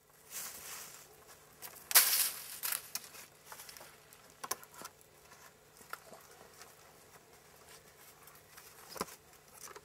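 Grapevine being wrapped and pulled around wooden poles to lash a cross piece: irregular rustling, scraping and crackling, loudest about two seconds in and again near the end.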